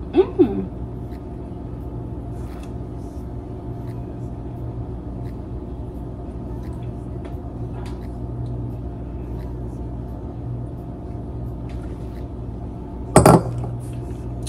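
A steady low hum with several fixed tones runs throughout, with faint small clicks from handling the drink. About 13 seconds in, a footed glass mug is set down on the kitchen counter with a sharp clink.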